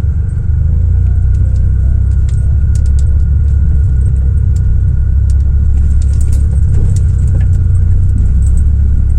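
A car driving on the road: a steady low rumble of engine and tyre noise, with scattered light clicks and rattles.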